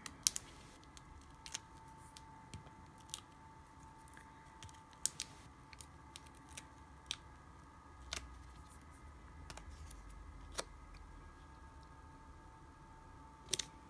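Faint paper handling: scattered small clicks and taps as fingers press card stock pieces onto a card, over a faint steady hum.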